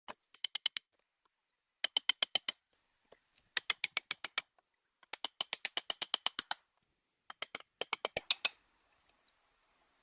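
Rapid sharp taps, about seven a second, in five bursts of half a second to a second and a half with short pauses between.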